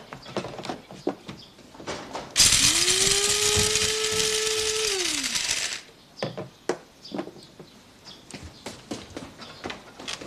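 A small electric motor whirs up about two seconds in, runs loudly for about three seconds and winds down, with light clicks and knocks of handling before and after.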